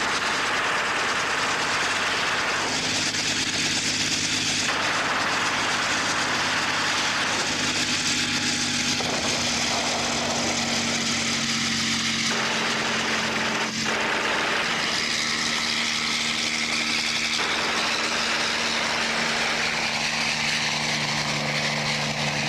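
Military helicopter engine and rotor drone: a steady, loud hum with a rushing wash over it. The sound changes abruptly every few seconds where the film is spliced, with one short click partway through.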